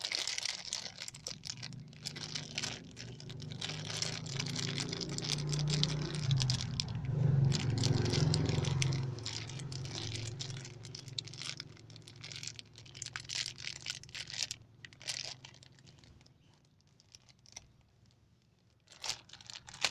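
Clear plastic bag crinkling and rustling as fingers handle the brake master cylinder rebuild kit parts inside it, thinning out near the end. A low rumble swells and fades in the middle.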